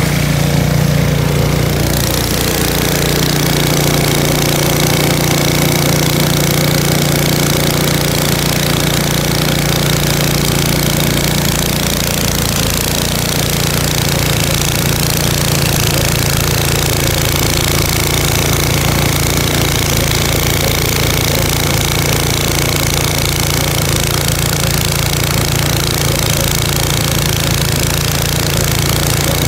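Two-stage gas snow blower running steadily, its single-cylinder engine and auger working through snow.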